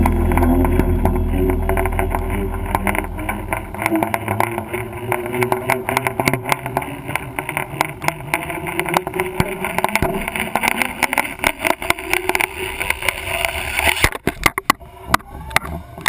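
Muffled wind and water noise on a GoPro's waterproof housing, thick with rapid clicks and knocks. A low hum fades out in the first few seconds, and the knocks thin out near the end.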